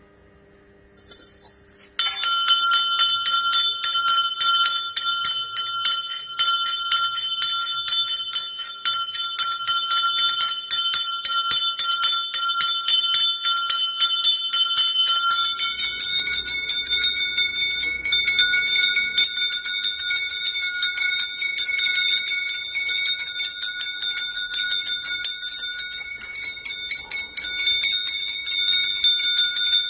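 Temple puja bells rung rapidly and without pause, starting suddenly about two seconds in. Partway through, the ringing pitch changes as a different bell sounds.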